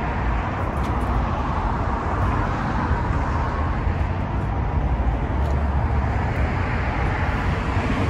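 Steady road traffic noise, a continuous low rumble of passing cars.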